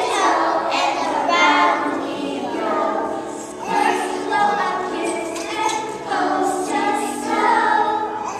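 A choir of voices singing together.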